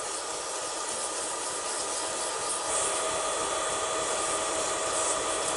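Wood lathe running while a resin and pine-cone blank is wet sanded with micro-mesh: a steady rubbing hiss over the constant hum of the lathe motor.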